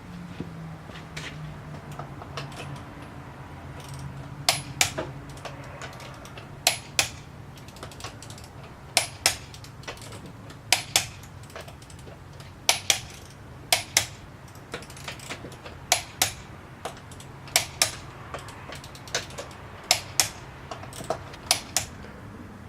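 Sharp metallic clicks and clinks, mostly in close pairs, every second or so, over a faint low hum: metal tools and hardware at work during a wheel swap on a jacked-up truck.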